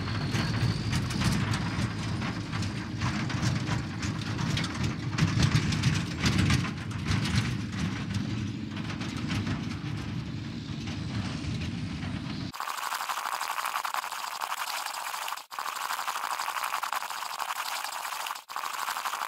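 Steady engine rumble, a vehicle sound effect for the toy military jeep, running for about twelve seconds. It then cuts off abruptly and a thinner, higher steady sound takes over, broken twice by brief dropouts.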